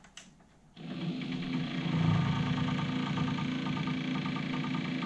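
Aiwa AD-WX929 twin cassette deck's tape mechanism running after power-on, starting about a second in: a steady motor hum with a rhythmic pulse, an ugly noise from the drive wheels turning with bits of the old, deteriorated rubber belts stuck on them.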